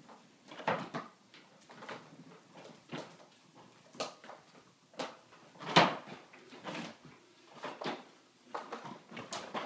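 A child's plastic ride-on trike rolling over hardwood floor and rugs: a string of irregular clunks and rattles, about one a second.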